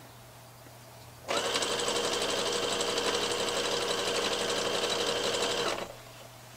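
Electric domestic sewing machine running at a steady speed, stitching jersey fabric. It starts about a second in, runs evenly for about four and a half seconds and stops shortly before the end.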